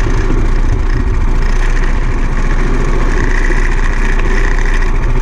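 A heavy vehicle engine running steadily with a dense low rumble; a steady higher whine joins about three seconds in.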